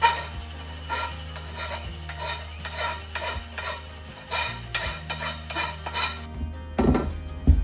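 Bench grinder wheel dressing the cut end of a white closet rod. It makes a run of short, repeated scraping rasps as the rod end is worked against the spinning wheel, over the grinder motor's steady hum. Near the end come two louder thumps.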